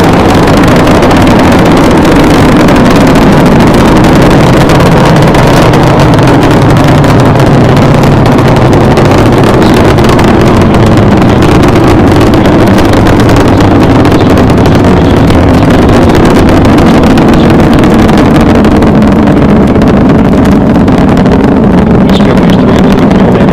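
Space Shuttle Discovery's solid rocket boosters and main engines during the climb after liftoff: a very loud, continuous deep rumble that holds steady.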